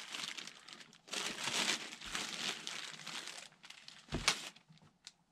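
Clear plastic bag crinkling as a foam RC model wing wrapped in it is handled, with a single thump about four seconds in as the bagged wing is set down on the table.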